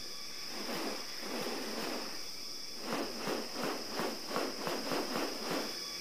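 A displaying male bird-of-paradise's wings swishing and rustling in a run of quick whooshes, coming about three a second in the second half, over a steady high drone of rainforest insects.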